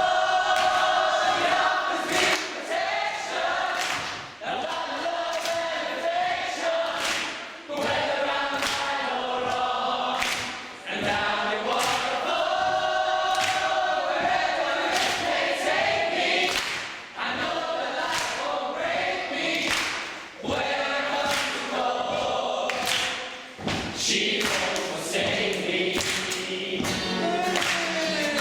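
A choir singing over music, with frequent percussive thuds through it.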